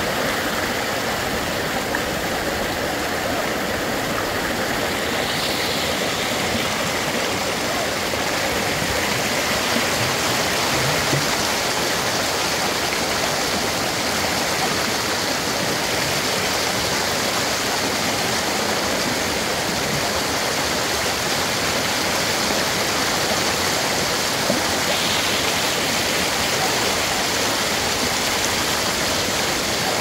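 Stream water rushing over a rocky ledge in a small cascade: a steady, unbroken rush of water close to the microphone.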